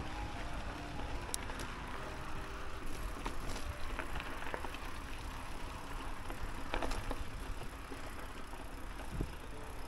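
Mountain bike in motion: steady wind rush on the microphone and tyre rumble, broken by a few sharp clicks and knocks from the bike about four times.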